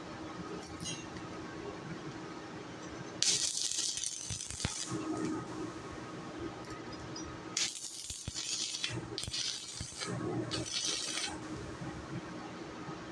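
Stick welder arc crackling in three short bursts, the first two about a second and a half each and the last shorter, over a steady low hum.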